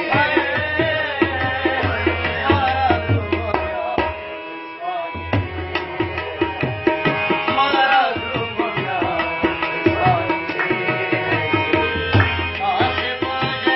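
Live Pashto ghazal accompaniment: tabla beating a steady rhythm under a wavering harmonium and rabab melody. The drums drop out briefly about four seconds in, then come back.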